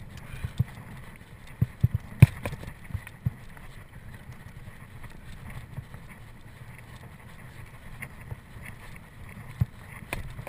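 Mountain bike ridden fast over a rough dirt trail: wind buffeting the microphone, with sharp knocks and rattles as the bike hits bumps, a quick cluster of them about two seconds in.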